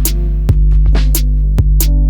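Electronic background music with a steady heavy bass and a programmed drum beat.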